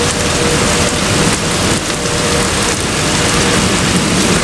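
Rain falling steadily, an even patter of drops on surfaces.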